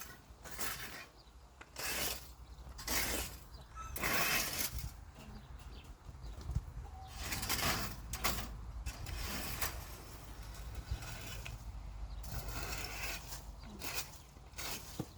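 Irregular scraping strokes of a cleaning tool clearing leaves and chicken droppings, one every second or two, some longer and drawn out, over a low steady rumble.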